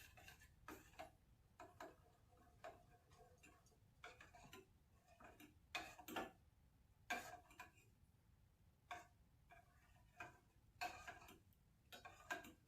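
Faint, irregular clinks and scrapes of a spoon against a pan as melted ghee is stirred over a low flame, about one or two strokes a second with some brief ringing.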